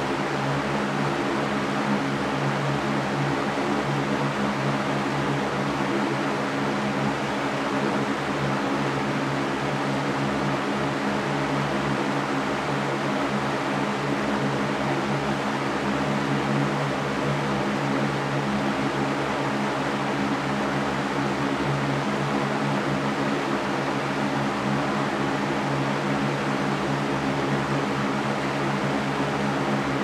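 Electric fan running steadily: an even rush of air with a low motor hum underneath.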